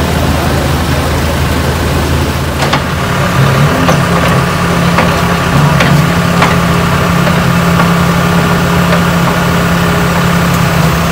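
Engine idling steadily. After a cut about three seconds in, a backhoe loader's engine idles close by as a steady low hum with a few light clicks.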